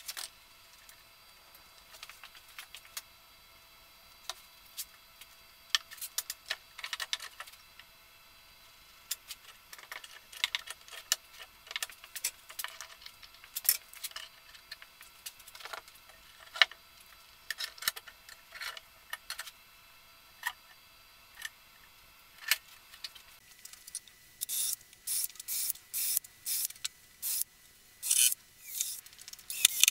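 Wooden blocks and clamps being handled on a glue-up, with scattered small knocks and clicks. About three quarters of the way in, a cordless drill starts drilling into the wood in short, repeated bursts.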